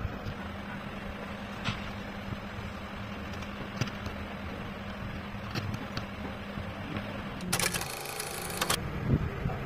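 Steady low hum and rumble with a few faint clicks of a hand chisel cutting into wood. Near the end comes about a second of a bright, rattling video-editing transition sound effect.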